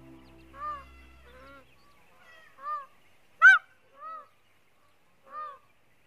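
Indian peafowl giving a series of short honking calls, irregularly spaced, the loudest about halfway through. A steady low hum underneath stops about a second and a half in.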